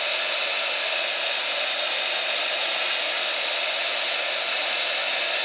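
Handheld embossing heat tool running on its high setting, blowing hot air: a steady, unchanging blowing noise.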